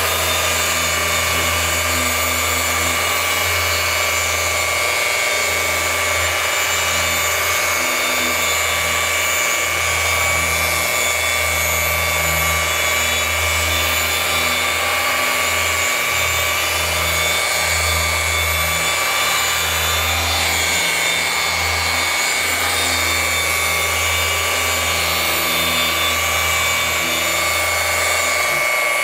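Handheld electric paint-correction machine running steadily on a car's paintwork, a constant high whine over a wavering low hum.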